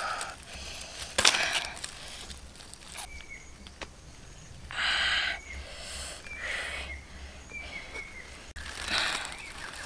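Dry leaf litter and twigs rustling and crunching in a few short bursts as they are disturbed, the biggest about a second in, around five seconds in and near the end. Faint short high chirps sound now and then between them.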